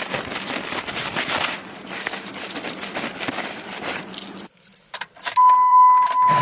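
A bunch of keys jangling and rattling as they are handled, for about four and a half seconds. After a short pause, a steady, high electronic beep starts near the end.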